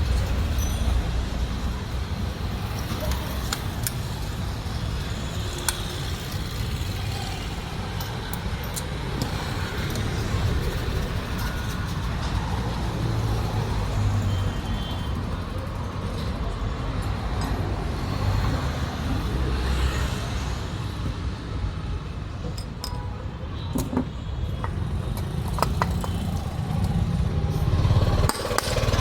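Steady low rumble of vehicle engines, with scattered short sharp clicks and taps.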